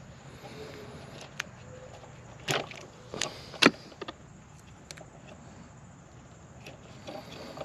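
Vinyl electrical tape being pulled off its roll and wrapped around the terminals of a GFCI receptacle: a few short crackling tears and clicks, the loudest about three and a half seconds in.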